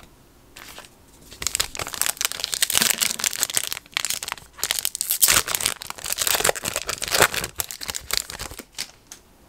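Foil wrapper of a Topps Chrome trading card pack being torn open and crinkled by hand: a dense run of crinkling and tearing that starts about a second and a half in and stops just before the end.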